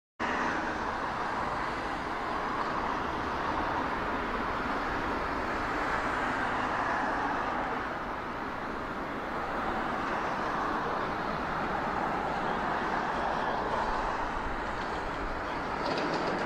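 Twin-engine jet airliner's turbofans running at takeoff thrust on the takeoff roll: a steady rushing noise with a low rumble underneath, swelling slightly now and then.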